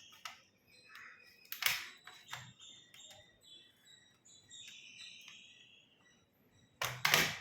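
Plastic case clips of an HP 15g-br011tx laptop snapping loose and scraping as the case is pried open by hand. There are a few sharp clicks, a loud one about a second and a half in and two close together near the end, with softer scraping in between.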